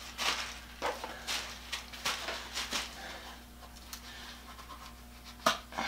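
Hands rustling as a glove is pulled on: a series of soft, hissy rubbing strokes, then a sharper click about five and a half seconds in. A faint steady low hum runs underneath.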